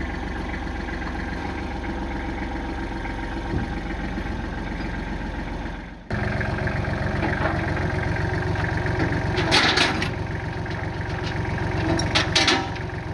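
Engine running steadily. About six seconds in, the sound drops out briefly and an engine comes back with a different note. A few short bursts of hiss come near the end.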